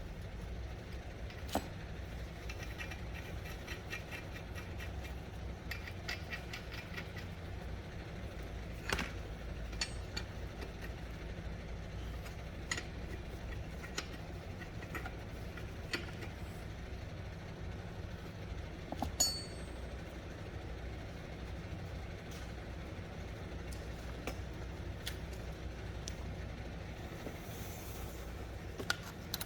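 Steady low machine hum, with scattered sharp metallic clicks and taps, the loudest about a third of the way in and again past the middle.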